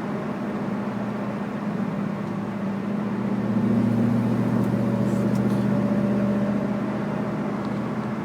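Chevrolet Camaro on the move: steady road noise with a low, steady hum that swells louder in the middle, the drone the owner suspects is a bad wheel bearing.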